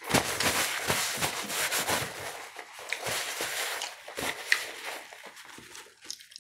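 Paper rustling and crinkling as it is handled and crumpled close to the microphone, a dense run of crackles for about four seconds, then quieter.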